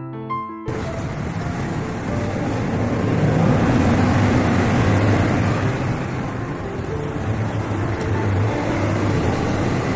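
Steady noise of road traffic or a running vehicle, swelling a little a few seconds in.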